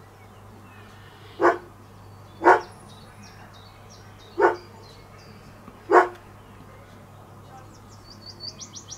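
A dog barking four single, sharp barks, one to two seconds apart. Near the end a small bird twitters in a quick run of high chirps.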